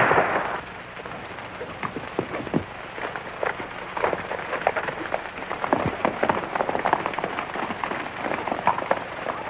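Several horses galloping, a fast irregular clatter of hoofbeats on dirt. It opens on the fading end of a loud gunshot blast.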